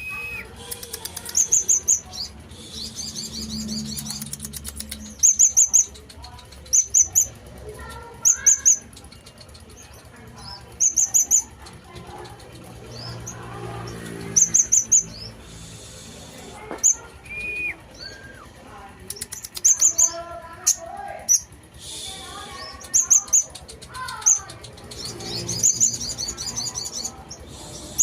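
Kolibri ninja (konin), a sunbird, singing in full song: short, loud, high-pitched chattering trills repeated every second or two, with softer chirps and squeaky glides between them.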